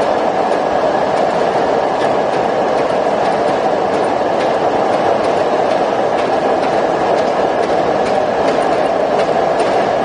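Concrete pole production machinery running with a loud, steady mechanical noise, a faint steady whine and light, regular clicking.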